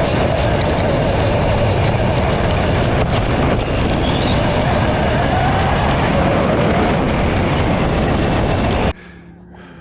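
An RC car's Castle 2028 brushless motor and drivetrain whining at high speed over a loud rush of wind and tyre noise. The whine climbs in pitch around the middle as the car accelerates, and the sound cuts off abruptly near the end.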